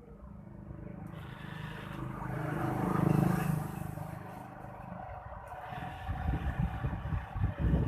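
A motor vehicle passing by, growing louder to a peak about three seconds in and then fading away, followed by irregular low fluttering thumps near the end.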